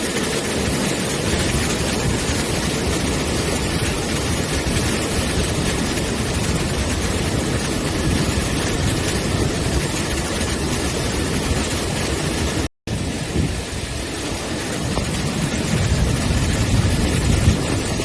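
Steady rushing noise of heavy cyclone rain and running floodwater, broken by a brief silent gap about two-thirds of the way through.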